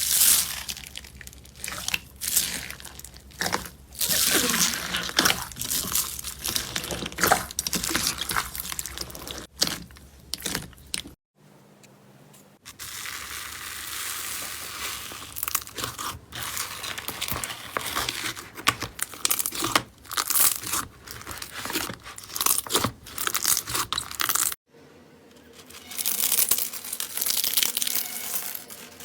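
Slime being squished, pressed and pulled apart by hand, with dense crackling, crunchy popping and tearing sounds. There are two short quiet breaks where one clip gives way to the next.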